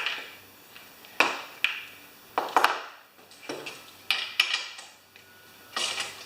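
Metal tools and small parts clinking and knocking on a workbench: a string of sharp clinks, about one or two a second.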